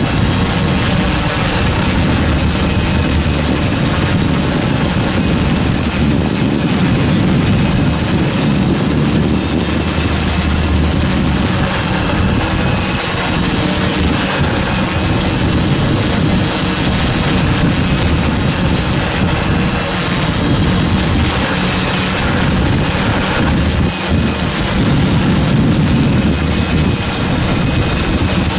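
Multirotor drone's motors and propellers running steadily in flight: an even, loud buzz with a faint high whine.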